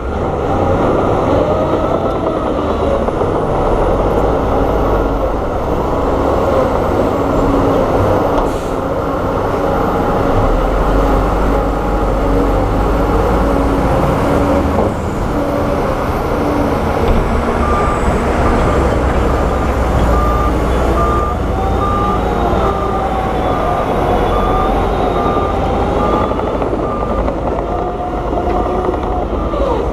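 Heavy diesel earthmoving machinery (bulldozers and dump trucks) running steadily. A reversing alarm beeps at an even pace for several seconds past the middle.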